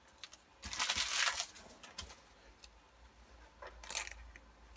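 Trading-card booster pack wrapper being torn open and crinkled by hand, with light clicks of cards handled. There is one rustling burst about half a second in and a shorter one near the end.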